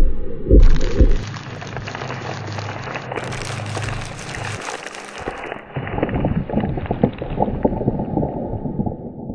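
Layered soundtrack sound effects: heavy low thumps in the first second, then a dense crackling, rain-like noise over a low hum. From about halfway it turns into many small clicks and crackles.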